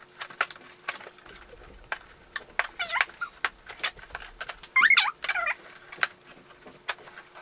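Toy box and plastic packaging being opened by hand: many sharp clicks and crackles, with short squeaky gliding sounds about three seconds and five seconds in.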